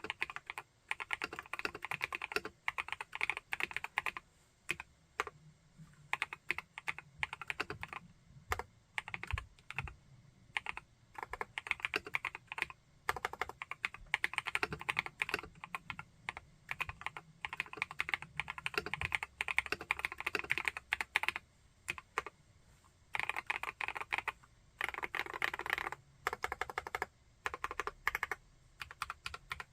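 Typing on an Epomaker Brick 87 mechanical keyboard with Epomaker Wisteria linear switches: quick runs of keystrokes broken by short pauses.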